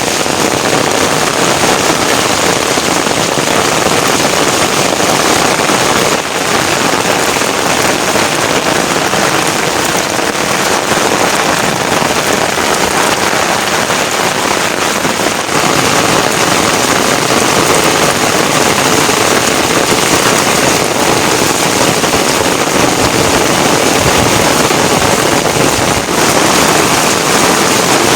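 Heavy rain falling, a loud steady hiss of drops on surfaces.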